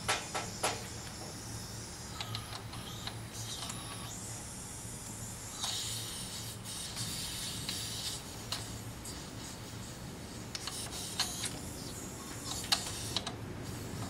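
Small clicks and short scraping rubs from a refrigerant charging hose's threaded fitting being screwed by hand onto a vacuum pump's port, over a steady low hum.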